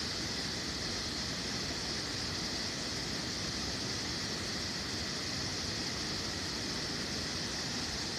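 Steady outdoor background hiss with a continuous high-pitched band, and no distinct events.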